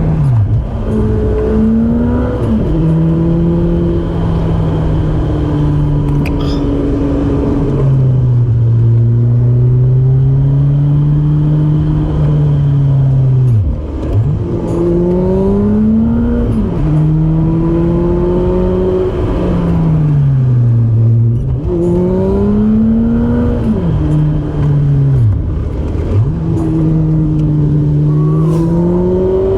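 Honda CR-V's four-cylinder engine being driven hard through curves, its revs climbing and falling over and over, with sudden drops in pitch at each gear change or lift off the throttle.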